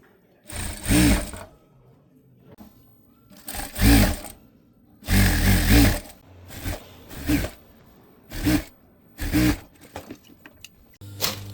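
Electric sewing machine stitching in short bursts, about eight of them, each under a second, the motor speeding up and slowing down again each time.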